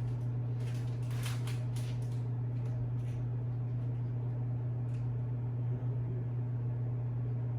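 A steady low hum throughout, with a few faint soft clicks and rustles in the first three seconds.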